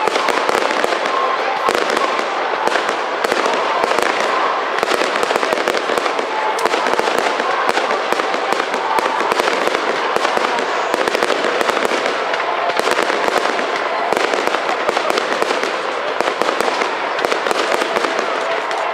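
Fireworks display: a dense, continuous barrage of rapid bangs and crackles with no let-up.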